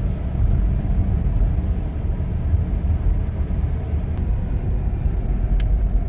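Car driving along a country road, heard from inside the cabin: a steady low rumble of engine and road noise, with a couple of light clicks in the last two seconds.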